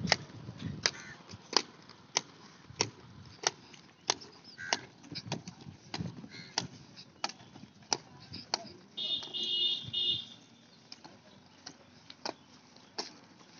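Hard steps on an asphalt road: sharp, irregular clicks about one to two a second. About nine seconds in, a high ringing tone sounds for about a second.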